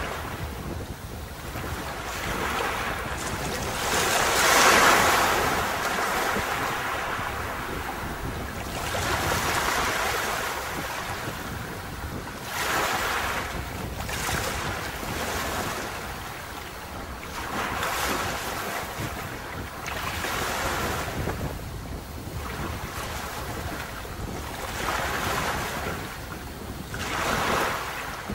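Sea waves breaking and washing up on a beach, rising and falling in surges of noise every two to three seconds, the strongest about five seconds in, over a steady low rumble.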